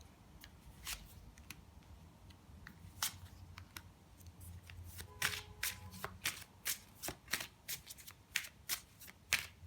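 A deck of tarot cards being shuffled by hand: soft scattered card clicks at first, then a quicker run of sharp card snaps from about halfway through.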